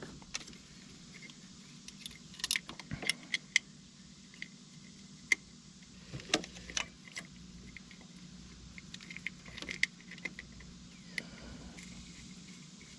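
Scattered light metallic clinks and taps of hand tools and small engine parts being handled and screwed down, at an irregular pace over a faint steady hum.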